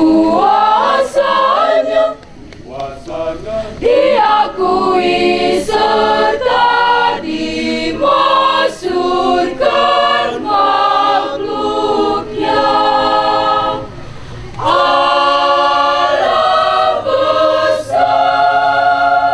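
Mixed choir singing unaccompanied in harmony, holding chords phrase by phrase, with short breaks between phrases.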